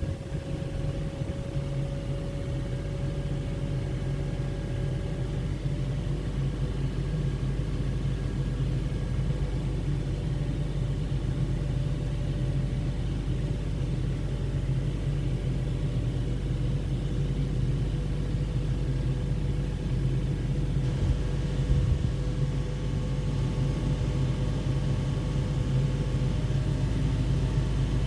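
2017 Toyota Tacoma engine running steadily, held at about 2,000 RPM, a continuous low hum with a faint steady whine above it.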